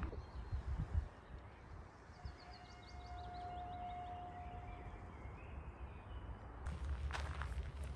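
Faint outdoor park ambience with birds singing: a quick run of short, falling chirps over a steady whistle-like note in the middle, then rustling noise from about seven seconds in.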